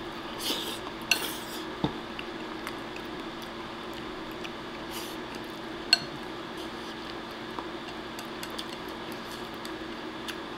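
Chopsticks clicking and scraping against a ceramic rice bowl during eating, with a couple of short mouth noises near the start. Scattered light ticks, the sharpest about six seconds in.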